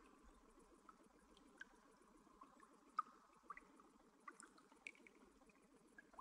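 Near silence: faint trickling water with small drips scattered at random, the loudest about three seconds in.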